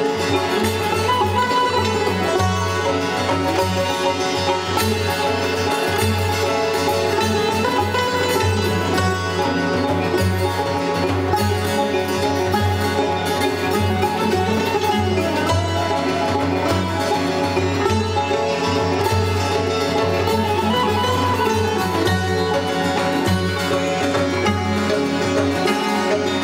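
Persian music played on plucked string instruments, going on steadily.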